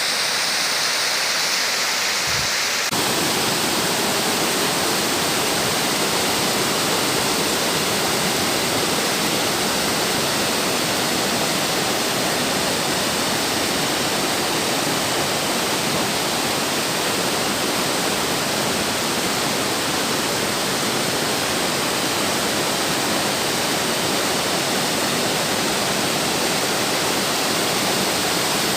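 Waterfall: a steady rush of falling water. About three seconds in it turns fuller and deeper.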